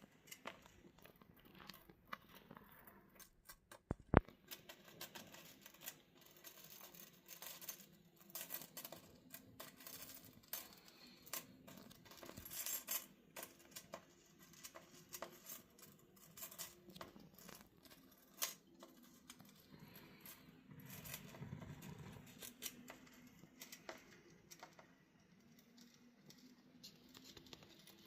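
Chain of metal can pull-tabs rattling and clinking as a cockatiel taps and tugs them with its beak: irregular light metallic clicks, with one sharp, much louder click about four seconds in.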